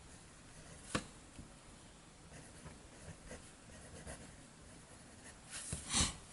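Steel medium-point Bock nib of a Pineider Avatar fountain pen writing on Clairefontaine 90 gsm paper: a faint scratching of nib on paper, with a sharp tap about a second in and a louder stroke near the end.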